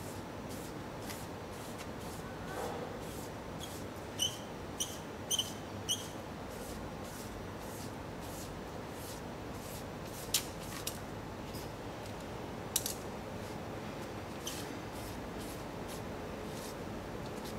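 Hand rubbing strokes scraping over paper held flat against a stone wall: a faint, repeated scratchy scrubbing over a steady background hiss. A few short high chirps come about four seconds in, and sharp clicks come near the middle.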